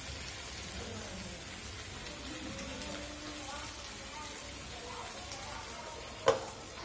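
Eggplant pieces frying in a little oil in a wok, a steady sizzle and patter. About six seconds in, a glass lid is set on the pan with one sharp clink.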